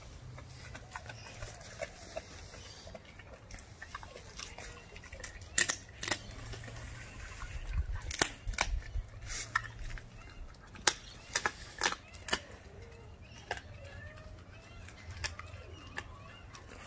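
A four-month-old German shepherd puppy chewing a raw chicken quarter. Sharp, irregular crunches come most often and loudest in the middle stretch, with softer chewing between them.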